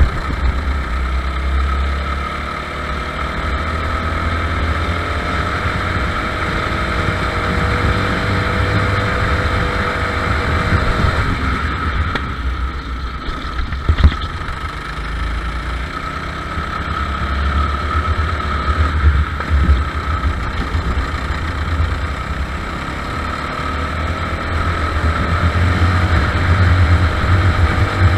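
Racing kart engine heard from onboard, running hard with its pitch rising and falling through the laps. It drops away about twelve seconds in, then climbs again. There is one sharp knock about halfway through, and the engine gets louder near the end.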